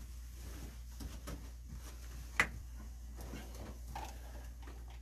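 Low steady hum with faint scattered ticks and one sharp click about halfway through.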